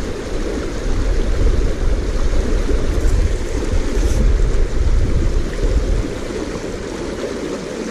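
Creek water rushing over a shallow gravel riffle, a steady rush, with a heavy low rumble under it that eases about six seconds in.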